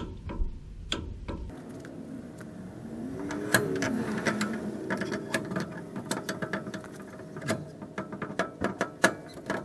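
Hand ratchet or torque wrench clicking in irregular runs as a bolt is wrenched on the differential.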